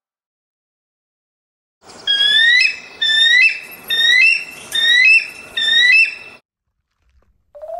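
A gull calling: five loud, harsh cries about a second apart, beginning about two seconds in. Each cry rises in pitch and then breaks into a higher held note.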